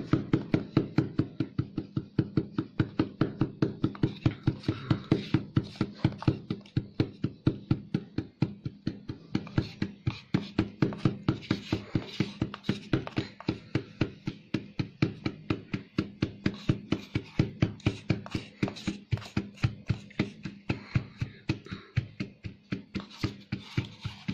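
Rubber mould filled with dental stone mix knocked against the bench over and over, about three sharp knocks a second, to settle the mix into the mould so no gaps or air bubbles are left.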